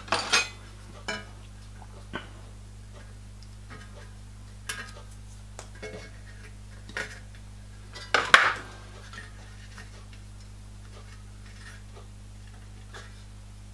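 Pliers twisting steel binding wire against a thin brass sheet: scattered small metallic clicks and clinks, the loudest clatters just after the start and about eight seconds in. A steady low hum runs underneath.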